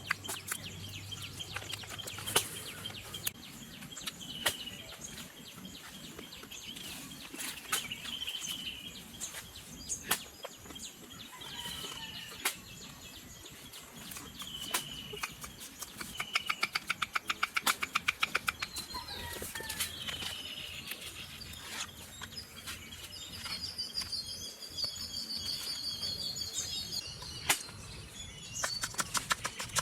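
Birds chirping in the background, with scattered sharp clicks and a few quick runs of rapid tapping.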